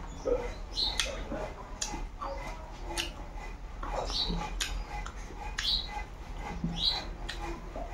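Close-miked eating by hand: wet chewing and lip smacking, with sharp mouth clicks about once a second.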